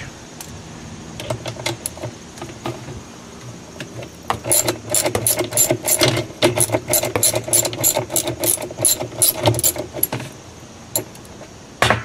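Ratchet wrench clicking in a fast run, about four clicks a second, from about four seconds in until near the tenth second, as the agitator bolt of a Kenmore 80 Series washer is backed out. A single sharp knock near the end.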